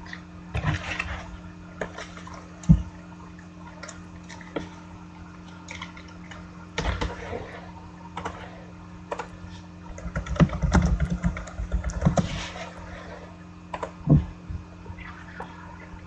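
Hands handling trading cards and packaging at a desk: scattered short rustles and clicks, with a run of quick clicks from about ten to twelve seconds in, over a faint steady electrical hum.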